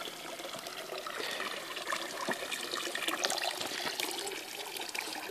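Spring water running and splashing steadily, with scattered sharp crackles over it.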